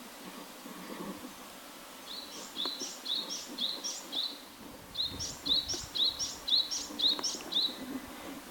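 A Japanese tit singing two bouts of its song. Each bout is a high two-note phrase repeated about two to three times a second, five or six times over, with a short pause between the bouts.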